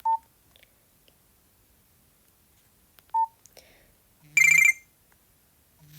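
Nokia 113 mobile phone: a short single-pitch beep near the start and another about three seconds in, then about four seconds in a loud half-second burst of a bright, buzzy ringtone from the phone's small speaker.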